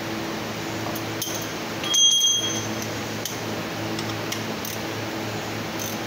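Metal hand tools clinking against an engine: a few scattered sharp clicks and one louder, ringing metallic clink about two seconds in, over a steady background hum.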